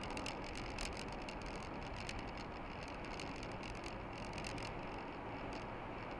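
Steady road and engine noise of a car driving at highway speed, heard inside the cabin, with many light irregular ticks and clicks over it, most of them in the first few seconds.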